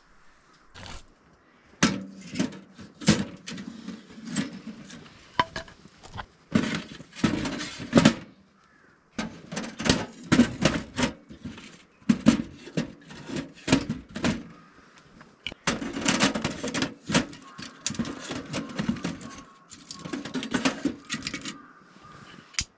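Handling sounds of lighting a wood stove: an irregular run of knocks, clatters and rustling as firewood and metal stove parts are handled, with short pauses between bursts.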